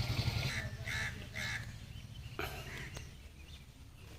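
Three short high animal calls within the first three seconds, over a low motor rumble that fades out about half a second in.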